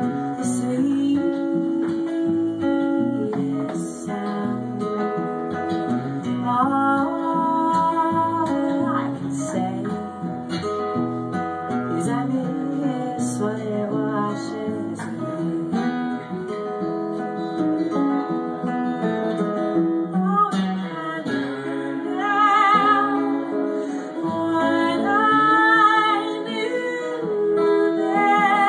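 Live acoustic performance: two acoustic guitars strummed and picked together, with a woman singing in stretches with a noticeable vibrato.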